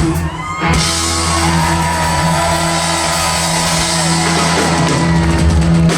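Live band with electric guitar and drums ringing out a long final chord to close a song. Steady held bass and guitar notes sit under a sustained cymbal wash that begins under a second in.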